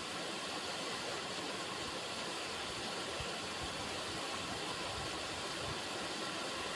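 River water running, a steady, even rushing.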